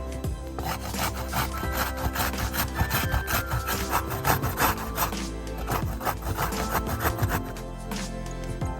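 Repeated hand scraping strokes of kitchen food preparation, such as grating or cutting an ingredient, stopping shortly before the end, over background music.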